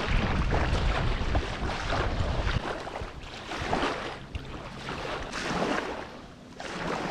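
Wind buffeting the microphone with a heavy low rumble for the first couple of seconds, then water splashing and sloshing in uneven bursts as someone wades through shallow water.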